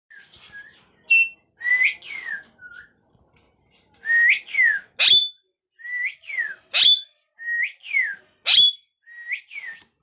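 Ring-necked parakeet whistling a repeated phrase: paired whistled notes, one rising and one falling, every second and a half or so, with a short sharp upward squeak between the pairs from about halfway on.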